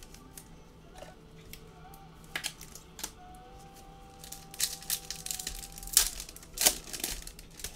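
Foil trading-card pack wrapper crinkling and crackling as it is handled and torn open, with sharp crackles, the loudest two about six and seven seconds in.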